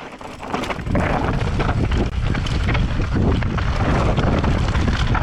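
Wind buffeting a GoPro's microphone while a mountain bike rolls fast down a dry, dusty trail, with tyre rumble and the bike rattling over the ground. It gets much louder about a second in as the speed picks up.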